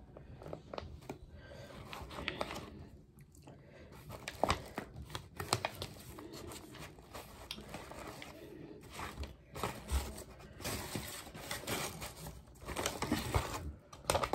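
Paper sandwich wrapper and takeout bag crinkling and rustling in irregular crackles as the food and packaging are handled.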